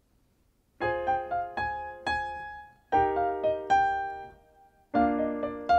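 Electronic keyboard played with both hands: held chords under the song's melody in C minor, in three short phrases that start about a second in, each chord fading out before the next.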